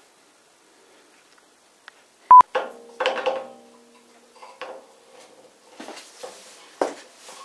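A short, loud single beep about two seconds in, then a run of knocks, clicks and rubbing as a thin wooden strip stuck in the sliding table saw's slot is worked at by hand.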